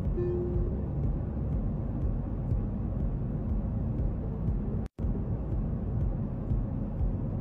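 Steady low drone of an airliner cabin in flight, with the lower note of a two-tone cabin chime sounding briefly at the start. The drone cuts out for a split second about five seconds in.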